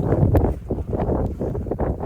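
Gusting winter wind buffeting the microphone: a loud, uneven low rush that rises and falls, with a short click about a third of a second in.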